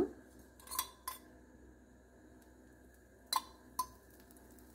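Small metal spoon clinking against a stainless steel cup of cooking oil as oil is scooped out: four light clinks in two pairs, about two seconds apart.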